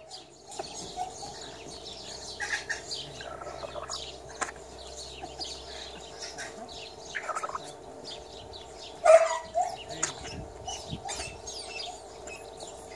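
Bantam chickens clucking and calling in short bursts, with small birds chirping high in the background. One louder call comes about nine seconds in.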